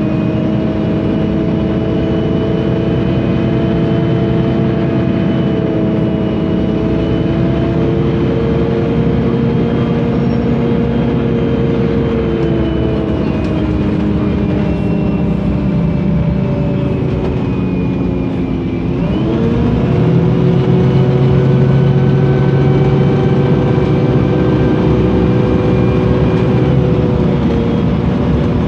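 MAN NL 273 T3 LPG city bus's gas engine running under way, its tone sliding slowly up and down. About two-thirds of the way through the pitch drops, then climbs sharply and the sound grows louder as the bus pulls harder.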